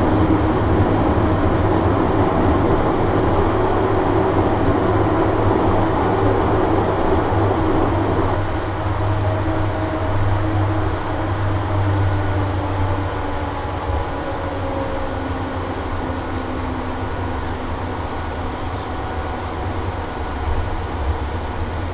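Airbus A350-900 cabin noise while taxiing, heard from a window seat beside the Rolls-Royce Trent XWB engine at idle: a steady low rumble with a droning tone that fades about eight seconds in.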